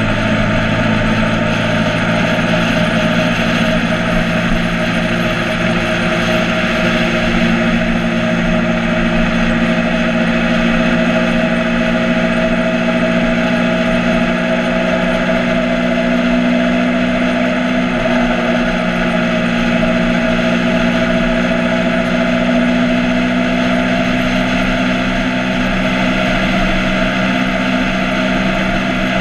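Motorcycle engine running at a steady, nearly unchanging pitch, with a constant rush of wind and road noise.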